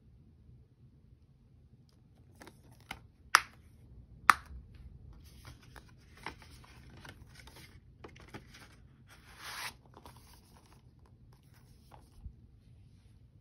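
Plastic Blu-ray keep case snapped shut with two sharp clicks, then rustling and scraping as the case is handled in its cardboard slipcover, with a longer swish, and a light tap as it is set down near the end.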